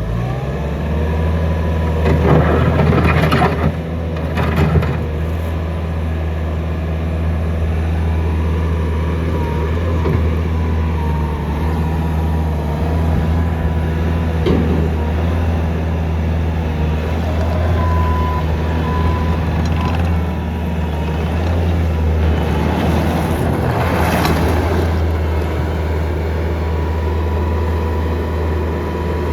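Bobcat T650 diesel engine running steadily, with a constant high whine over the low engine note. Louder, noisier spells come about two to five seconds in and again near the 24-second mark.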